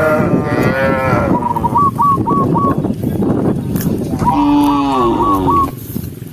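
Cattle mooing: a long, low moo at the start and another about two thirds of the way in. Between them a bird calls in quick runs of three or four short hooked notes.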